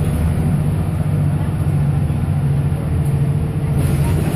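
Scania L94UB city bus's diesel engine running, a steady low drone heard from inside the passenger cabin. A hiss comes in near the end.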